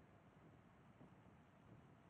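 Near silence: a faint, steady low rumble of wind and tyres on asphalt while riding.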